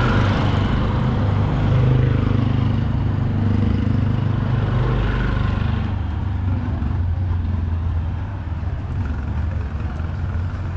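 A motor vehicle's engine running, a steady low hum with road noise that eases off about six seconds in.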